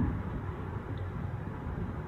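Steady low road and engine noise inside a moving car's cabin.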